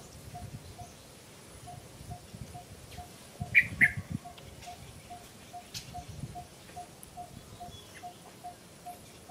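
A bird repeating a short, low, even note about three times a second. Two sharp, high chirps stand out about three and a half seconds in.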